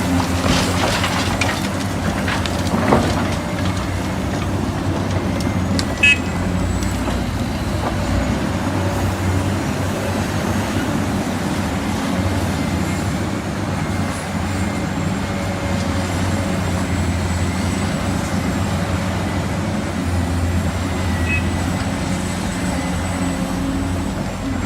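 Heavy diesel construction machinery, such as an excavator, running steadily, with a few knocks in the first seconds and one sharp knock about six seconds in.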